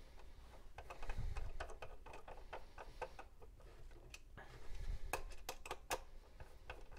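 Scattered light clicks and taps of hands handling the metal stand hinge and plastic back casing of an HP Compaq 6000 Pro All-in-One computer. They come in small clusters, busiest a little after a second in and again around five to six seconds in.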